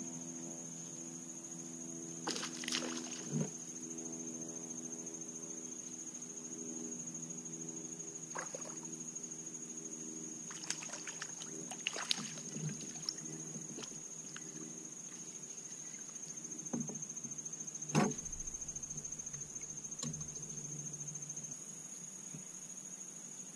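Insects buzzing in a steady high tone over the water, with a low hum through the first half. A splash in the water about halfway through, and several short knocks, the loudest near the end.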